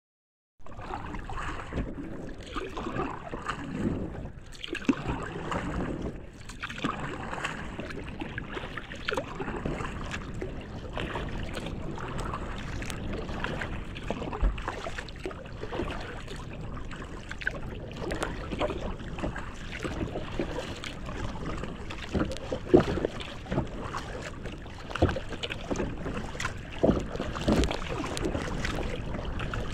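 Lake water slapping and splashing against a kayak's bow and hull as it moves through choppy water, in an irregular, continuous wash with a few sharper splashes in the last several seconds.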